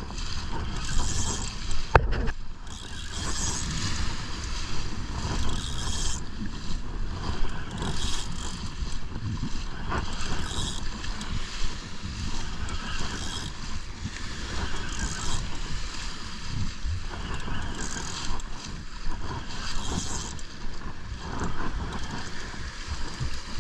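Spinning reel being cranked steadily, its gears turning under the load of a hooked red drum, with wind buffeting the microphone and surf washing behind.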